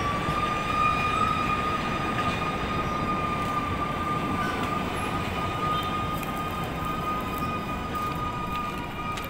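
A train's whistle sounds one long, steady high note for about nine seconds over the rumble of the moving train.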